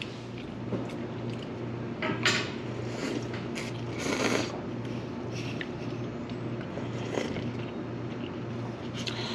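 Sipping and slurping from a bowl held to the mouth, with short noisy sips about two seconds and four seconds in, over a steady low hum.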